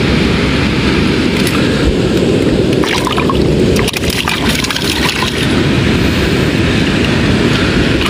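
Steady wind rumble on the microphone, with water splashing and sloshing in a shallow rock pool from about three to five seconds in as a thrashing eel-like fish is grabbed by hand.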